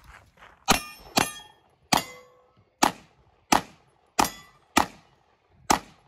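Handgun fired eight times in a steady string, the shots about two-thirds of a second to a second apart, each with a short echo. A short ringing tone follows the third shot.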